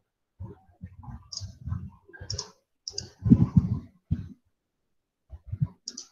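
Computer mouse and keyboard clicking: a run of short, irregular clicks, busiest a little past three seconds in, a pause of about a second, then a few more clicks near the end.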